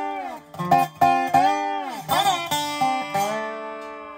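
Guitar music of plucked notes, some gliding down in pitch as they ring, fading out near the end.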